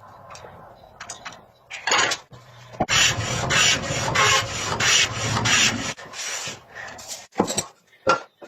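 Wood being rasped by hand: quick back-and-forth strokes, about two or three a second, for a few seconds in the middle, with scattered scrapes before and sharp knocks near the end.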